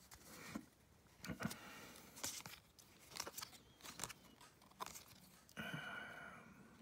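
Soft clicks and rustles of a freshly opened stack of baseball trading cards being handled and slid apart in the hands, about once a second, with a brief faint hum near the end.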